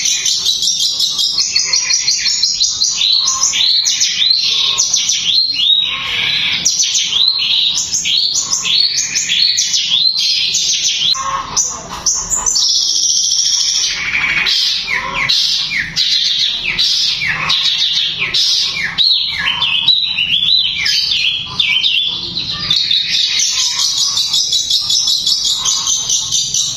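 Long-tailed shrike (cendet) singing a fast, tightly packed stream of sharp notes, many of them sliding down in pitch.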